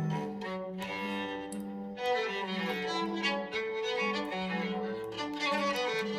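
A smartphone ringtone or alarm tone: a melody played on bowed strings, with violin and cello lines.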